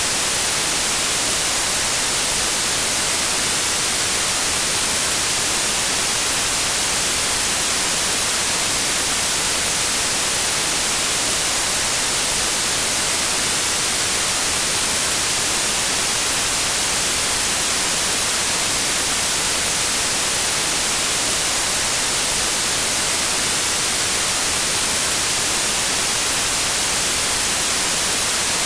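Steady electronic white noise: an even, constant hiss, brightest in the treble, that does not change.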